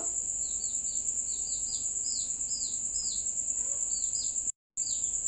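Small birds chirping: a run of short, quick chirps, repeated several times a second in little groups, over a steady high cricket trill. All sound drops out for a split second about four and a half seconds in.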